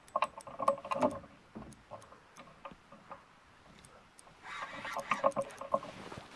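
Fishing reel clicking in uneven runs while a hooked fish is played and reeled in, with scattered sharp ticks and light knocks.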